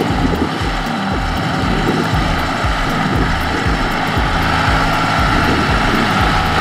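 Diesel farm tractor engine running hard under load while pulling a trailer of rice sacks through deep mud, with a steady, uneven low chugging.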